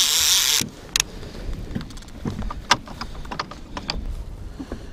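A loud rush of noise in the first half-second, then scattered sharp clicks and knocks as a baitcasting fishing reel and rod are handled.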